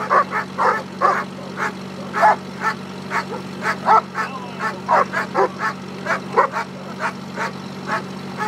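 German shepherd barking hard and fast, about three barks a second, in Schutzhund bite work as it drives at the helper's bite pillow. A steady low hum runs underneath.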